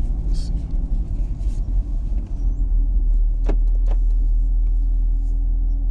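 2020 Camaro SS's 6.2-litre V8 idling with a steady low rumble, heard from inside the cabin. Two sharp clicks come about three and a half seconds in.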